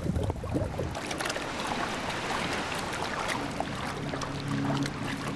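Seawater splashing and lapping, a steady rush dotted with small drips and ticks. Sustained background music tones come in about three and a half seconds in.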